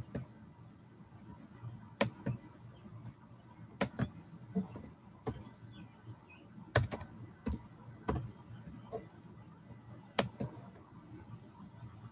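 Computer keyboard keys tapped now and then: about ten short, separate clicks at irregular intervals, a few bunched together about seven seconds in.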